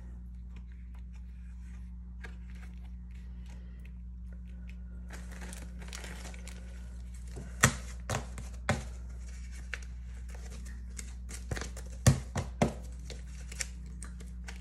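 Thin clear plastic crinkling and tearing as a bag of plastic binder pocket inserts is handled and opened, getting busier partway through, with a few sharp snaps in the second half. A steady low hum runs underneath.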